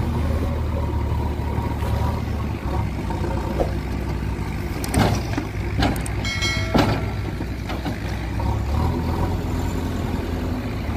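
JCB 3DX backhoe loader's diesel engine running with a steady low drone as its front loader bucket tips a load of soil into a truck bed. Around the middle come a few sharp clanks as the load is dumped, with a brief high squeal among them.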